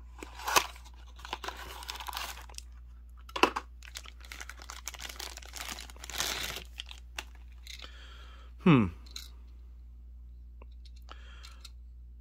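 Thin plastic wrapping and a cardboard toy box being handled and opened: short bursts of crinkling and tearing as a small die-cast car is pulled out of its bag. About nine seconds in, a brief loud squeak-like sound falls quickly in pitch.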